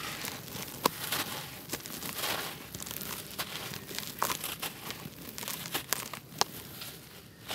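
Hands crumbling a large dry block of red dirt: gritty crunching and crumbling, broken several times by sharp cracks as chunks break off.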